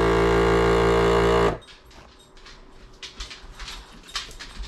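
Countertop vacuum sealer's pump running with a steady drone, drawing the air out of the bag, then cutting off suddenly about a second and a half in as the machine moves on to sealing. Faint scattered clicks follow.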